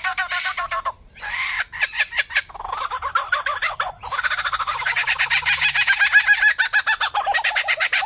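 Lyrebird singing its mimicry song: a string of varied calls, then from about four seconds in a fast run of repeated notes, about ten a second.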